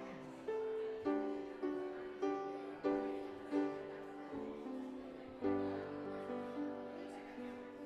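Piano playing a slow, gentle piece; chords and melody notes are struck about once a second and each rings and fades.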